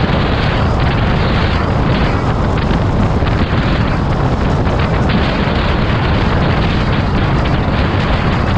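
Steady, loud rumble and rush of wind and road noise from a moving vehicle, heaviest in the low end.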